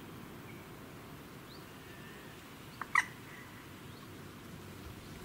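Birds calling: a few faint chirps and one short, sharp call about three seconds in, the loudest sound, over a steady low background rumble.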